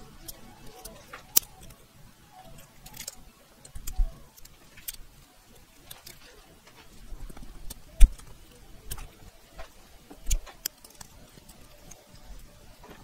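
Small plastic clicks, scrapes and ticks of a thin pick being worked into a strut's plastic electrical connector to free its terminal pins, with a few dull knocks against the bench, the loudest about eight seconds in.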